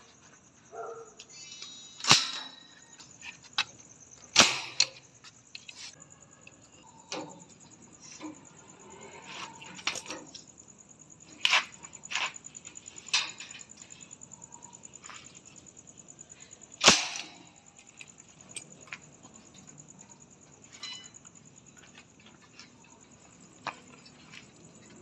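Manual spring-loaded nail gun firing nails through a steel angle bracket into a concrete floor: several sharp, snapping shots at uneven intervals, with lighter clicks and knocks between them.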